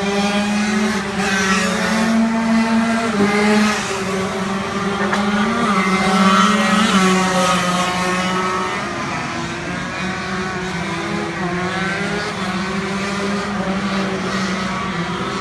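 Several small racing engines running hard at once, their pitch rising and falling as they rev up and back off around the circuit.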